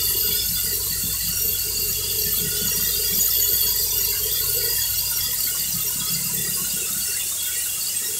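Steady high-pitched whistling squeal of compressed air hissing through an air-driven hydrotest pump's air lines and fittings, over a low rumble.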